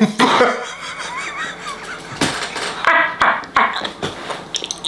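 Several short, sharp smacks spread over a few seconds, with a faint wavering tone between them.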